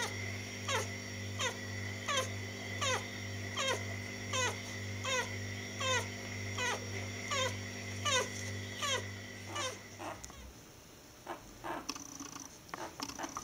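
Newborn poodle puppy crying: high squeals that fall steeply in pitch, about one every three-quarters of a second, over a steady low hum. The cries and hum stop about ten seconds in, leaving fainter short squeaks.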